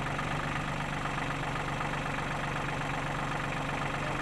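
Backhoe engine running steadily at a low, even note.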